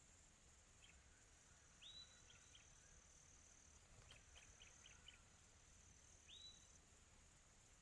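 Faint tropical afternoon ambience: a steady, high drone of crickets. Over it a bird calls twice with a short rising note, about 2 s in and again near the end, with scattered short chirps and a quick run of about five chirps in the middle.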